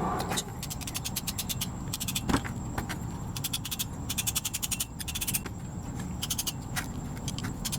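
Stuck piston being tapped out of a drum brake wheel cylinder: short runs of rapid, light metallic clicking and tapping, with one louder knock about two and a half seconds in.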